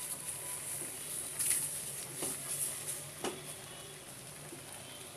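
Silicone spatula scraping and stirring a crumbly chhena and khoya mixture in a nonstick pan over heat, about four strokes in the first half, over a faint steady sizzle. The soft mixture is being stirred to dry it out.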